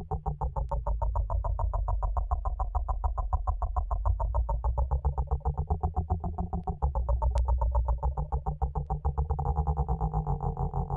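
Circuit-bent office telephone's electronics giving a rapid electronic pulsing, about ten pulses a second, over a steady low drone, heard through a speaker; near the end the tone thickens and shifts.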